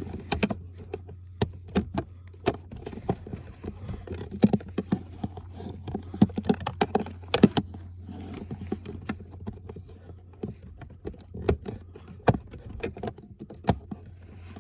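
Irregular plastic clicks, taps and scrapes of a cabin air filter being pushed and worked into its housing while trying to seat it in its groove, over a steady low hum.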